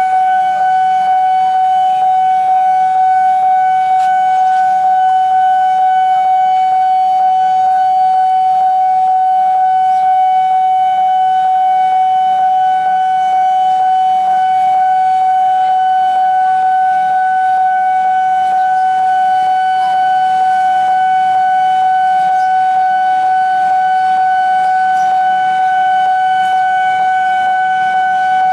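Railway level-crossing warning sounder giving one steady, unbroken tone, the alarm that runs while a train is passing the crossing.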